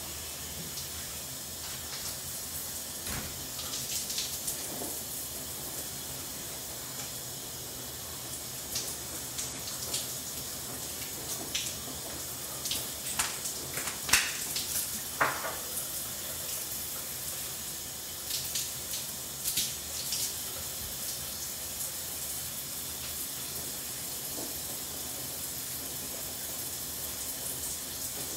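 Shower running: a steady hiss of water spray, with scattered splashes and clatters in the middle as someone washes under it.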